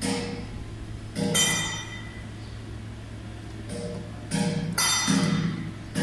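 Background music: acoustic guitar strummed in single chords, each ringing and fading, at uneven intervals, over a steady low hum.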